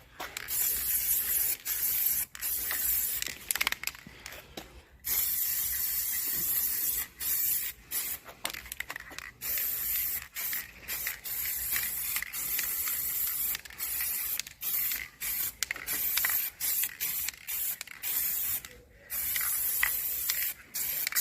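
Aerosol spray-paint can hissing in many short bursts with brief gaps between them, as a coat of black paint goes onto a steel spare wheel.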